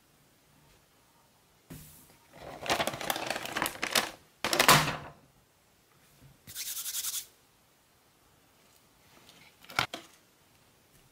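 Cardboard takeaway box being handled and opened: a few seconds of scraping and rustling, a short high hiss, then a single sharp tap near the end.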